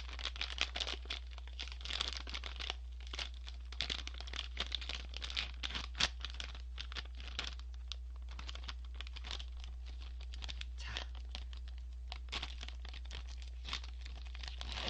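A crinkly plastic Cheetos snack bag being worked at the top and pulled open, its film crackling and tearing throughout.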